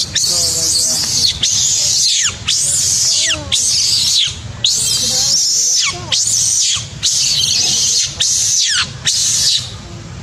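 Baby macaque screaming in distress: about nine shrill screams in quick succession, each rising and then falling in pitch, stopping near the end.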